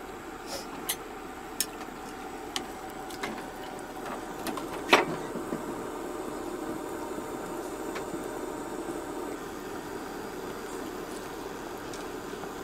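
Cooking sounds: a steady low rush with a faint hum, scattered light clicks of kitchen utensils, and one sharp knock about five seconds in.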